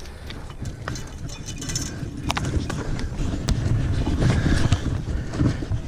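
Low, uneven rumble of wind on the microphone during a horseback ride, with scattered sharp clicks and knocks.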